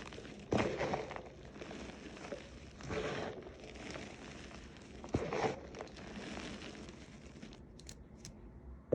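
Reformed chalk crunching and crumbling as it is crushed, with three sharp crunches about two and a half seconds apart and softer crumbling between them.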